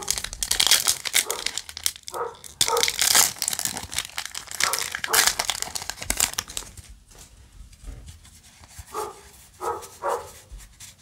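Foil wrapper of a trading-card booster pack crinkling and tearing as it is ripped open by hand, then quieter rustling as the cards are slid out and fanned. A few short mid-pitched sounds break in about two seconds in and near the end.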